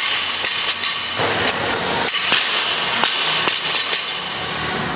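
Busy gym workout noise: irregular metal clanks and knocks from barbells and a steel pull-up rig over a steady hubbub of the room.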